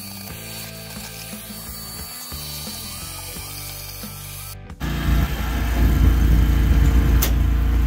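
Milwaukee 18-volt cordless wet/dry vacuum running, its hose sucking drywall dust out of the bottom of an electrical breaker panel. It stops abruptly about five seconds in, giving way to a much louder low rumble with one sharp click near the end.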